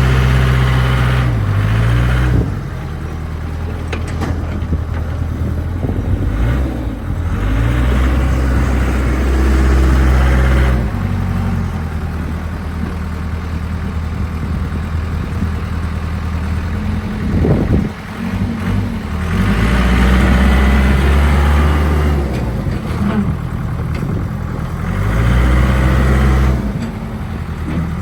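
Case 580 Super K backhoe's Cummins 4-390 four-cylinder diesel running, speeding up and labouring for a few seconds at a time, four times, then settling back each time, as the machine's hydraulics are worked. A brief sharp clank about two-thirds of the way through.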